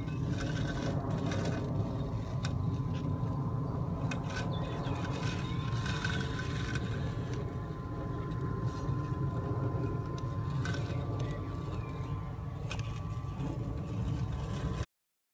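Husqvarna Automower robotic lawn mower running as it drives across grass: a steady low hum with a thin faint whine over it and a few light clicks. It cuts off suddenly near the end.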